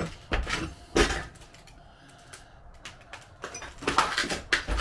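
Irregular knocks and clatters of debris underfoot on the floor of a smashed-up room: three sharp ones in the first second, a lull, then a quick cluster near the end.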